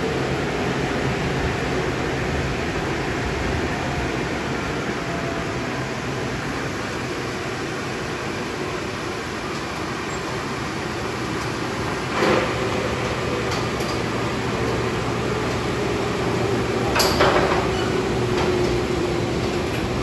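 Automatic car wash tunnel machinery running steadily: spinning cloth brushes, water spray and motor hum. Two brief louder hisses come about twelve and seventeen seconds in.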